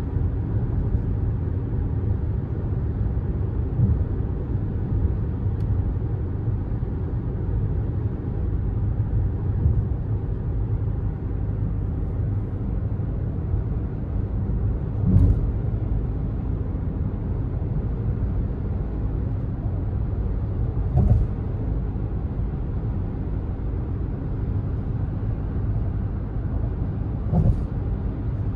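Steady low rumble of a 2011 VW Tiguan's 140 PS 2.0 TDI diesel and its tyres, heard from inside the cabin while cruising at motorway speed. A brief thump comes every five or six seconds.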